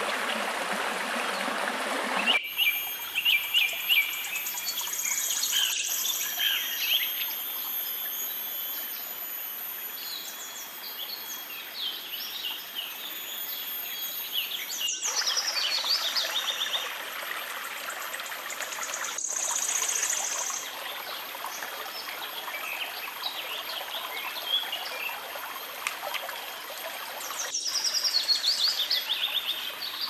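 Rushing water for the first couple of seconds, then wild birds chirping and trilling in quick repeated calls over a faint hiss of flowing water and a thin steady high whine. The sound cuts off abruptly and resumes several times.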